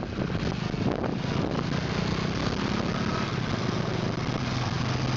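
Motorcycle engine running steadily on the move, under a steady rush of wind and road noise.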